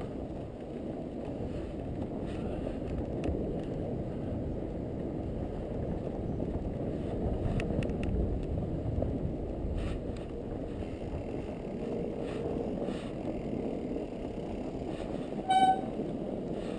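Fat bike riding over snow: a steady low rolling rumble with faint scattered clicks. Near the end comes one short, high-pitched toot.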